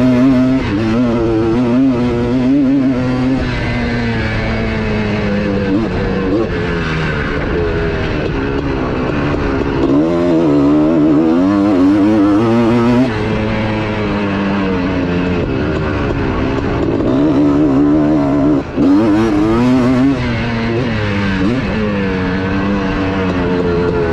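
Built air-cooled 250 two-stroke motocross engine running hard under an onboard camera, its pitch rising and falling again and again with the throttle and gear changes. It cuts out briefly about nineteen seconds in.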